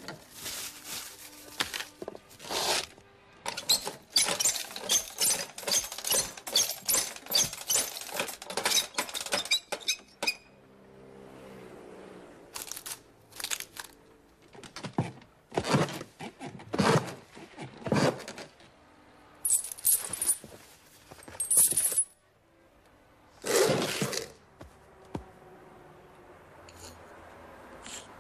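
Close-miked, exaggerated film Foley of a paper napkin being chewed: a dense run of crackling, crunching clicks for about ten seconds. After that comes a string of separate sharp clicks, clinks and scrapes with short gaps between them.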